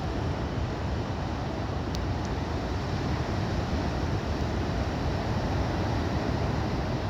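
The sea's steady roar: a continuous rushing noise, heaviest in the low end, with no breaks or distinct wave crashes.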